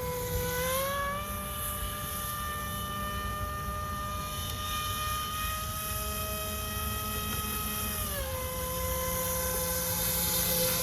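RC airboat's Roxxy 36-42 930 kV brushless motor driving a three-blade 9x5 air propeller: a steady propeller whine whose pitch rises a little about a second in and drops a little near the end.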